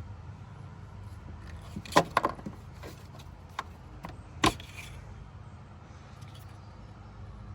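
Light metal clicks and knocks from the oil dipstick of a Toro riding mower being handled while the oil level is checked: a pair about two seconds in and the sharpest about four and a half seconds in, over a steady low hum.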